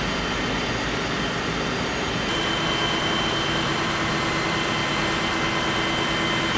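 Steady drone of parked London Fire Brigade Mercedes-Benz diesel fire engines left running at the scene. A high, steady whine joins it about two seconds in.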